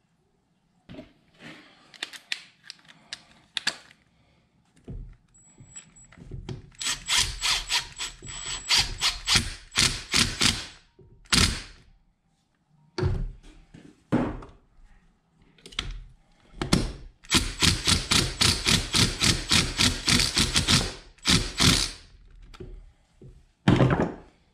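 Cordless impact driver hammering on the bolts of a Hydro Gear hydraulic drive pump in two long runs of fast, even rattling strokes, with a few shorter bursts. Separate sharp knocks of metal parts on the bench fall between the runs.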